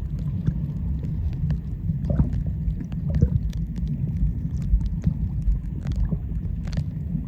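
Underwater ambience while snorkelling in the sea: a dense, muffled low rumble of moving water with scattered small clicks and crackles.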